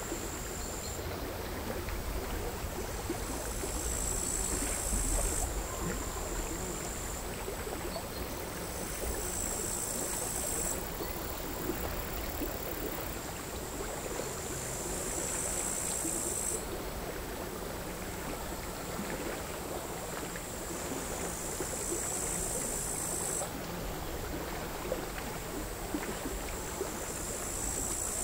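Crickets singing a high, buzzing song in bouts of two to three seconds, recurring about every five or six seconds, over the quiet, irregular lapping of small sea waves on a rocky shore.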